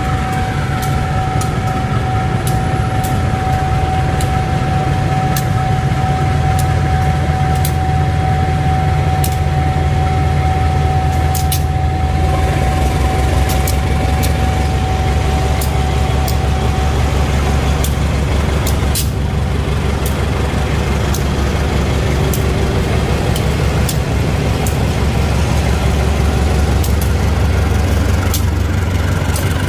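Diesel locomotive engine running with a deep steady rumble that grows louder about six seconds in. A thin steady whine runs alongside until about seventeen seconds in, and scattered sharp clicks come through.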